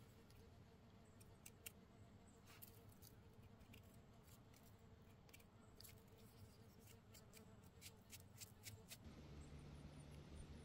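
Near silence with faint, scattered scrapes and clicks of a small knife scraping dirt off a lobster mushroom. These stop about nine seconds in, leaving only a faint low background hum.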